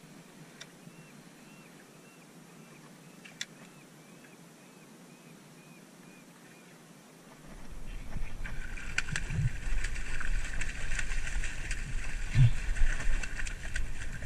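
Water splashing and sloshing against shoreline rocks, with wind buffeting the microphone. This starts about halfway through, after a quiet stretch with a faint, regular soft ticking.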